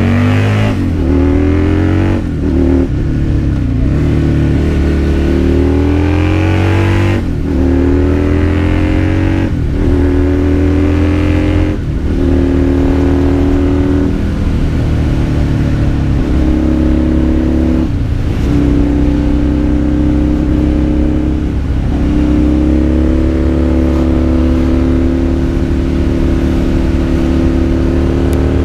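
Husqvarna Nuda 900 motorcycle's parallel-twin engine accelerating through the gears: the pitch climbs, drops sharply at each of several quick upshifts, then holds steadier as the bike cruises in the second half.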